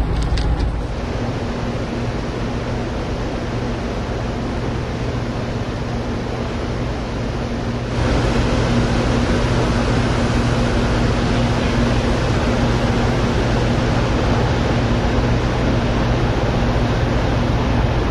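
Ferry's engines droning steadily, heard on the open deck with wind noise over the microphone. Louder after about eight seconds.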